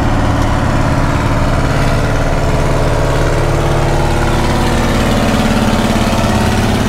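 John Deere tractors driving past close by in a line, their engines running steadily at low speed; one grows louder and rises slightly in pitch as it passes nearest, about five seconds in.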